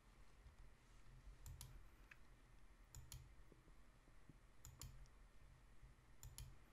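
Near silence: faint room tone with pairs of soft clicks, four pairs in all, one pair about every second and a half.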